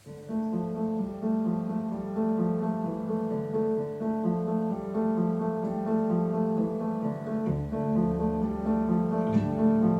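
Recorded instrumental music played back through YG Acoustics Vantage 3 loudspeakers: a repeating figure of sustained notes, starting at the beginning, with deep bass notes coming in about seven and a half seconds in.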